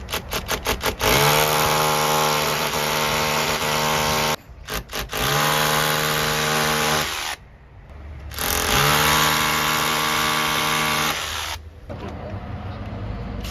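Electric drill fitted with a stainless-steel bit, drilling a hole. The trigger is blipped several times in quick succession, then the drill runs in three spells of two to three seconds each, with short pauses between. The motor whine rises in pitch as it spins up at the start of each spell.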